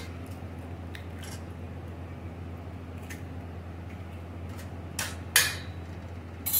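Raw eggs being cracked and opened over a stainless-steel bowl: a few light taps and clinks of shell and spoon against the steel, the loudest about five and a half seconds in, over a low steady hum.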